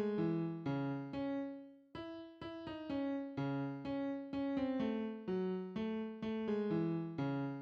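FL Studio's default piano plugin playing back a simple melody in C# minor, a steady run of notes that each strike and fade, about two or three a second, with a brief gap about two seconds in.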